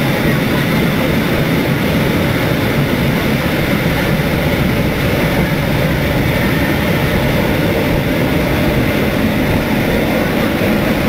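Even rushing noise of a moving train, heard at an open carriage doorway while it runs along the line.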